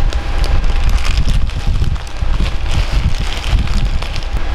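Wind from an electric fan buffeting the microphone as a loud, steady low rumble, over plastic bags crinkling with short crackles as ice cubes are handled.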